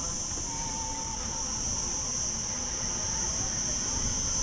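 Steady, unbroken high-pitched insect chorus, with a low rumbling noise underneath.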